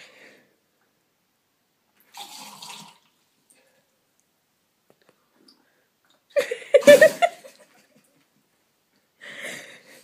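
A person with her face in a bowl of water making wet slurping, bubbling and throaty noises in three short bursts, the loudest in the middle with a short pitched vocal sound.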